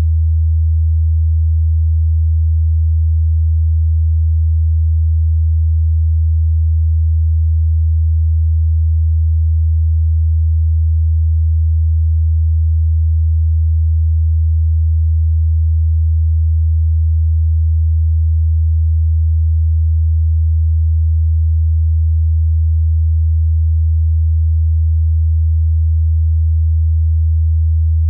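A single deep electronic tone, pure and unchanging.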